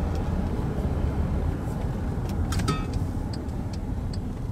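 Steady low rumble of the Volkswagen Amarok Canyon's 3-litre V6 turbo diesel and its tyres, heard from inside the cab while cruising on the road. A few faint short ticks come in the second half.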